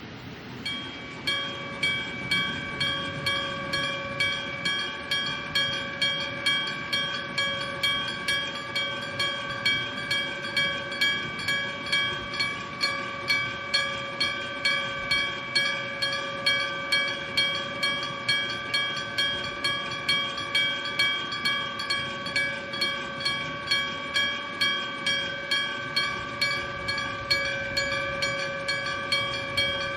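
Electric-bell (denshō-type) level crossing alarm ringing. An electrically driven hammer strikes a metal gong about twice a second, starting about a second in, and each strike rings on into the next.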